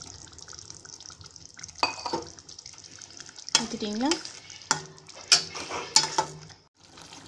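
Steel ladle stirring boiling tamarind curry in a stainless-steel pot, scraping and knocking against the pot several times, over a steady faint hiss of the boiling gravy.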